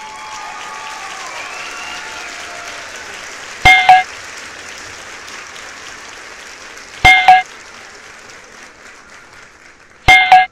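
A crowd applause sound effect, with some cheering in the first few seconds. Over it come three loud, short electronic click-and-chime sounds about three seconds apart, each a quick double hit with a ringing tone: subscribe-button and notification-bell sound effects.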